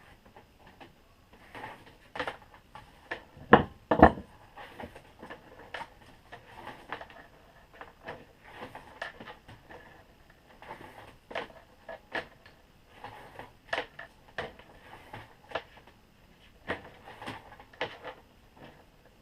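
TNT Tooling WSA wire stripper clamped in a vise working through extension cord: irregular clicks, knocks and scrapes as the cord is fed and stripped. Two loud knocks come about three and a half and four seconds in.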